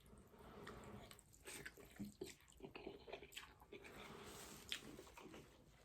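Faint, scattered small sounds of noodles being moved in a bowl of pho broth: soft liquid sloshing and light clicks.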